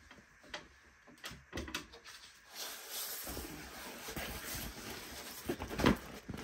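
Rustling and crinkling of a diamond-painting canvas and its clear plastic cover film as it is lifted and bent by hand, starting with a few soft clicks and becoming a steady rustle, with a sharper crackle near the end.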